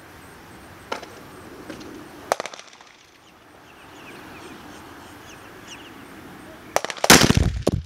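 12-gauge 1-ounce Federal Premium slug shot hitting a ballistic shield close to the microphone: a very loud blast and impact crash about seven seconds in. Before it, two sharp cracks and faint bird chirps.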